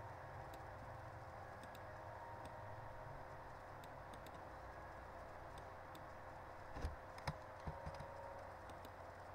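Scattered computer mouse clicks over a steady faint hiss and hum, with a few louder short knocks about seven seconds in.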